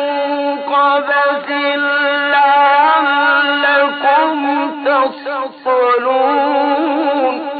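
A man's voice reciting the Quran in Arabic, chanted in long held notes with many quick ornamental pitch turns. The voice trails off near the end.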